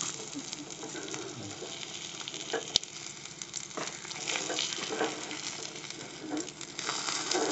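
Egg omelette sizzling steadily in hot oil in a small iron tadka pan, while a steel ladle scrapes under it and turns it over, with a sharp tap of the ladle on the pan a little under three seconds in.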